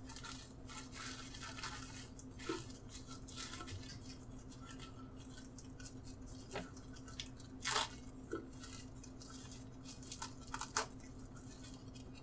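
A thin plastic bag being handled and pulled apart along a knife cut, giving soft rustles and scattered small crackles, with a few sharper ones in the second half.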